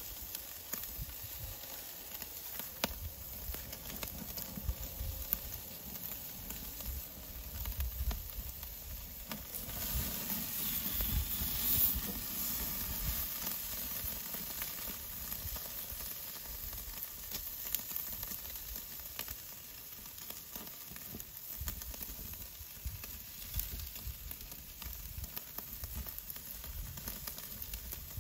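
Food sizzling on a Weber grill, with scattered crackles and pops. The sizzle swells for a couple of seconds about ten seconds in.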